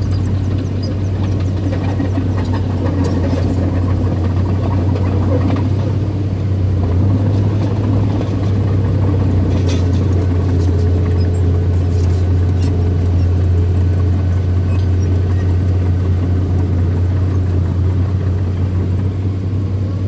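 Small bulldozer's diesel engine running steadily, with a few faint clanks about halfway through.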